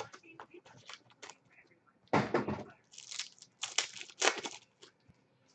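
A cardboard trading-card box and its wrapped pack being torn open by hand. There is a loud tearing rip about two seconds in, then wrapper crinkling and small taps and scrapes of handling.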